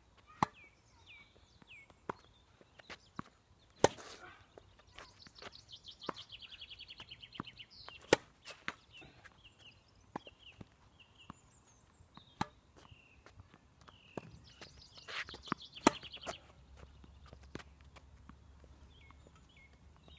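A tennis rally: sharp pops of rackets striking the ball and the ball bouncing on the hard court, the loudest coming about every four seconds. Birds chirp and trill between the hits.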